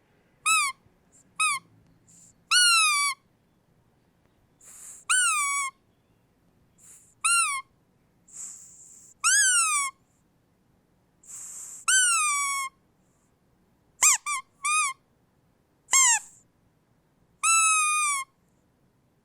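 A dog's squeaky toy squeezed again and again, about a dozen squeaks at uneven intervals. Some are short chirps and others are longer squeals that rise and then fall in pitch. Several are preceded by a brief breathy hiss of air through the squeaker.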